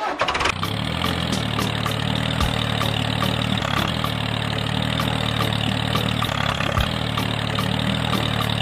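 A tractor-type engine sound effect starts up and runs steadily at idle, with a light regular ticking clatter about two to three times a second.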